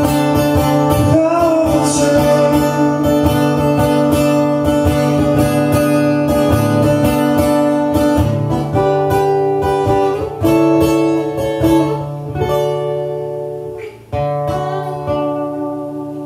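Acoustic guitar strummed steadily, with a man singing a held, wavering note early on. Toward the end the strumming gives way to single chords left to ring, with a short break before the last one, as the song closes.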